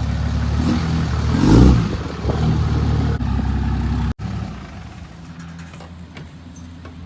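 Road vehicle engine running steadily, heard from inside the cab while driving, with a brief loud swell about a second and a half in. Just after four seconds the sound cuts abruptly to a quieter, steady engine hum.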